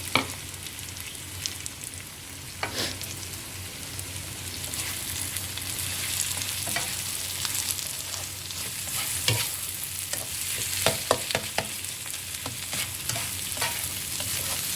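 Eggs and prawns frying in hot oil in a pan on medium-high heat, with a steady sizzle and the clack and scrape of a spatula against the pan. There is a sharp knock at the start and another near three seconds; the clacks come more often in the second half.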